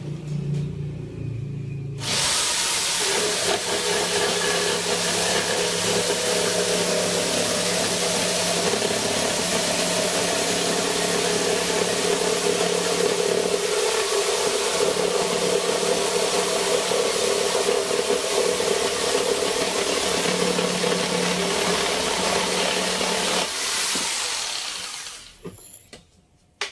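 Corded 850-watt jigsaw starting about two seconds in and cutting through a thin wooden board, a loud, steady buzz of motor and reciprocating blade. Near the end it winds down and stops.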